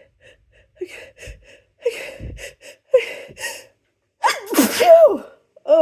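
A person's sneeze coming on: several short catching gasps, then a loud voiced sneeze about four seconds in.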